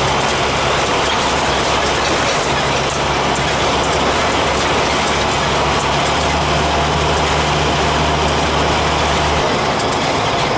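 Wind rushing in through the open side window of a moving vehicle, a steady noise with the engine's low drone and road noise underneath.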